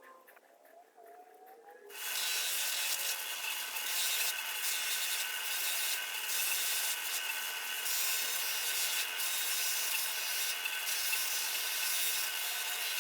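A power buffing wheel comes in suddenly about two seconds in and then runs steadily with a steady whine, buffing the steel lineman's pliers.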